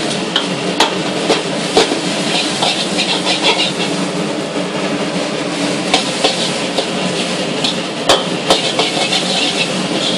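Fried rice being stir-fried in a wok over a gas burner: a steady sizzling hiss and hum, with the spatula scraping through the rice and striking the wok with sharp clacks every so often, twice in quick succession about eight seconds in.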